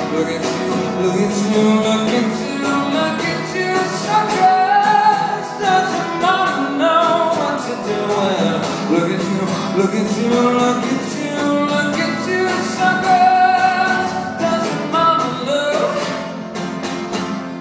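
A man singing live to his own strummed acoustic guitar, the vocal line rising and falling over steady strumming.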